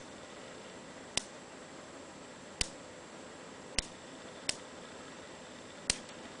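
Snow static discharging from a ham radio antenna: the charge built up on the antenna feeders sparks across a small gap to a wire from the antenna tuner, giving five sharp snaps at irregular intervals of about a second or so over a faint steady hiss.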